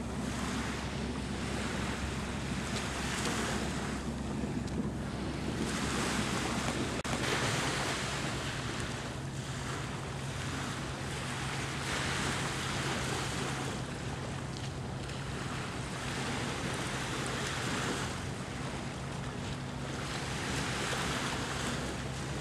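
Small waves washing at the shore, swelling and fading every few seconds, with wind on the microphone and a steady low hum underneath.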